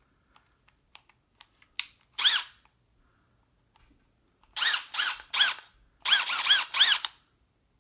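Milwaukee M12 FUEL brushless hammer drill spinning freely with an empty chuck in short trigger pulls, each whir rising and falling in pitch as the motor spins up and coasts down. There is one pull about two seconds in, then a quick run of seven or so pulses near the end, after a few faint clicks of handling.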